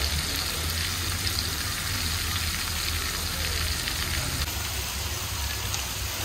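Steady sizzling hiss from clay tagines cooking over charcoal braziers, with a low hum underneath.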